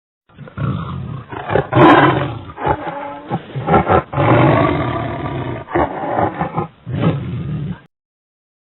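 A large wild animal roaring in a run of long, rough calls, played as a recorded clip that starts and cuts off abruptly.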